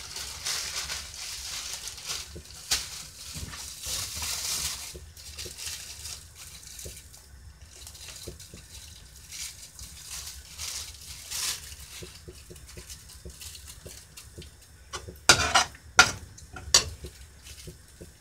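Clear plastic bag crinkling and rustling as cheese slices are pulled out of it, with scattered small clicks. Near the end come three loud, sharp knocks.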